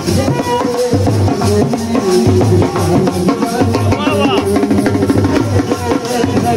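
Loud amplified wedding-procession music with a steady drum beat played through a DJ truck's horn loudspeakers, with a man singing into a handheld microphone over it.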